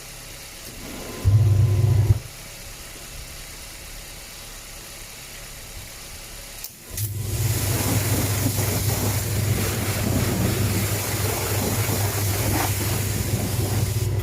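Steam cleaner's pump motor humming with the hiss of its spray jet: a short blast about a second in, then a long steady blast from about halfway that cuts off right at the end. The car's engine idles quietly underneath.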